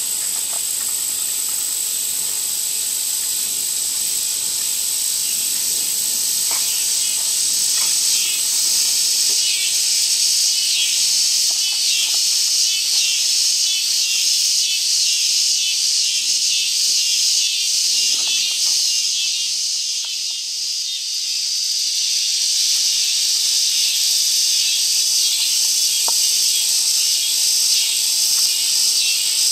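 Insect chorus: a steady high-pitched drone with a rapidly pulsing trill over it through the middle, easing briefly about two-thirds of the way through.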